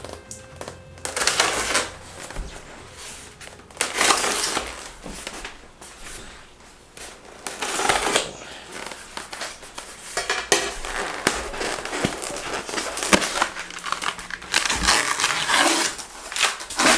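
Hands digging through loose packing peanuts and packaging in a shipping box, a rustling, crinkling handling noise in irregular bursts.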